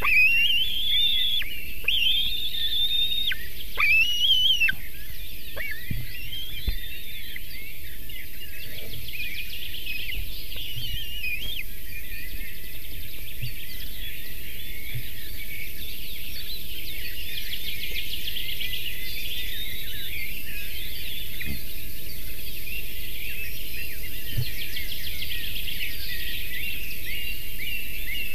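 Birds calling and singing: loud slurred whistles rising and falling in the first few seconds, then a steady chorus of high chirps and trills over a constant hiss.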